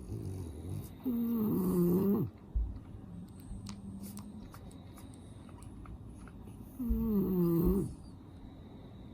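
French bulldog snoring in its sleep: two loud snores with a wavering pitch, about a second in and again some six seconds later, each lasting a little over a second. Between them, faint breathing and a few light clicks.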